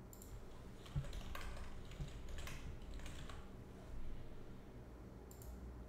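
Faint computer keyboard typing in short runs of keystrokes with pauses between them.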